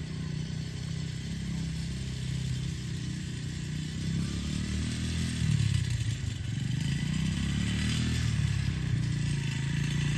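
125cc dirt bike engine running, the revs dropping about six seconds in and then picking up again.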